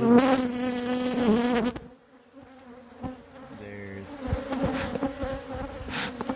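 Honey bees buzzing loudly around an opened hive whose colony has just swarmed. A bee buzzes close for the first two seconds and then the sound drops away sharply. Another brief close buzz comes about four seconds in, and a quieter, steady buzzing follows.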